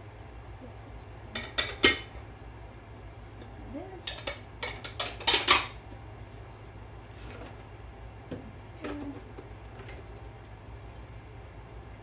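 Dishes and cutlery clinking and clattering as they are unloaded from a dishwasher and put away. There are two bursts of clatter, about two seconds in and around five seconds in, then a few lighter clinks.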